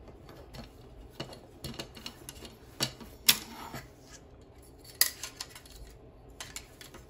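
Plastic embroidery hoop being taken apart: a few sharp clacks and knocks of the hoop rings, the loudest two about a third and two thirds of the way in, with fabric and stabilizer rustling between them.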